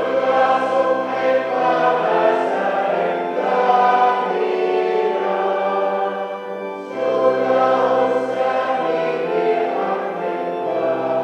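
A church congregation of men and women singing a hymn together, in long held phrases with a short break about seven seconds in.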